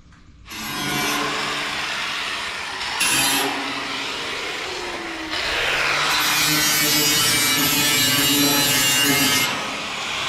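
Angle grinder grinding sheet steel, a steady whine over a gritty hiss. Just after five seconds its pitch falls, then it speeds back up and carries on.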